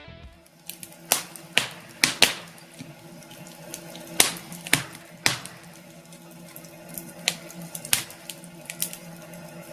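Logs burning in a fireplace, crackling with a dozen or so irregular sharp pops over a soft hiss. A faint steady hum runs underneath.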